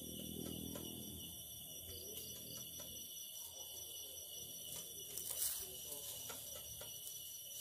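Steady chorus of night insects, mostly crickets, holding several high tones. There are a few soft clicks, with one sharper knock about five seconds in.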